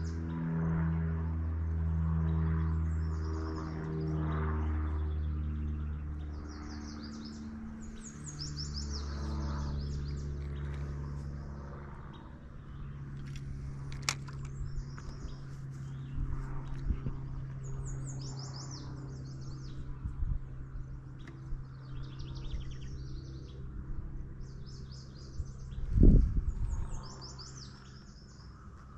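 Songbirds singing repeated short chirping phrases over a low, steady hum that shifts pitch a few times. One dull thump comes a few seconds before the end.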